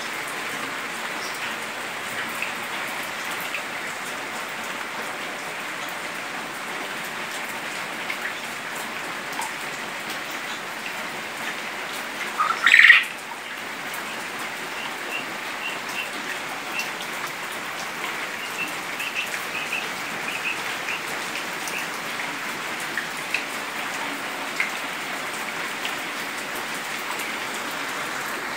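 Steady rain hiss with young quail calling over it: one loud call about halfway through, then scattered short, high chirps.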